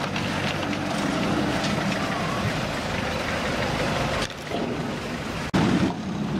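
Pickup truck engines running at low speed amid outdoor noise. The sound changes abruptly twice in the second half.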